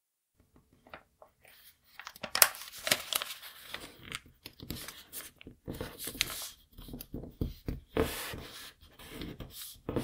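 A sheet of origami paper being folded by hand, with irregular crisp rustles and crackles as it is pleated and the creases are pressed flat against the table. The paper sounds start about a second and a half in.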